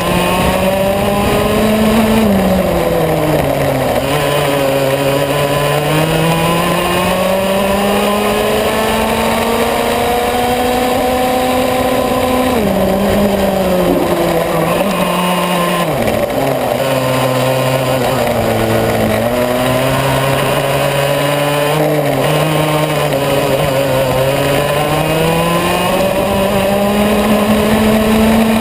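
Yamaha KT100S single-cylinder two-stroke kart engine at racing speed, heard onboard. Its note climbs as the kart accelerates and drops as it slows for corners, dipping several times, deepest about halfway through, then rising high toward the end.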